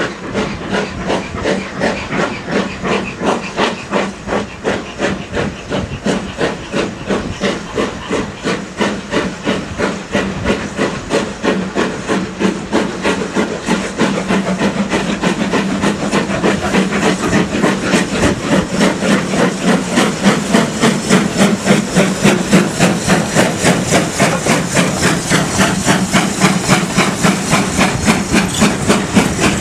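Steam locomotive working hard, its chimney exhaust beating steadily over the hiss of steam. The beats quicken slightly and grow louder from about halfway through as the engine comes closer. The engine is most likely 41241, an LMS Ivatt Class 2MT 2-6-2T tank engine.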